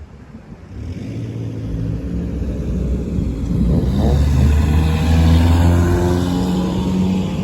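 Fire engine pulling out and driving past, its engine accelerating and growing louder to a peak about five seconds in, the pitch dropping slightly as it goes by.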